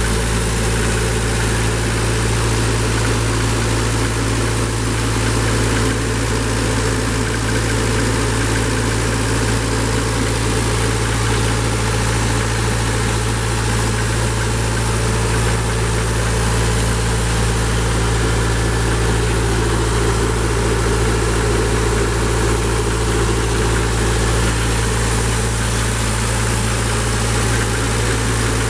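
Atlas Copco XAS 136 DD portable air compressor's Deutz turbo-diesel engine running at a steady speed.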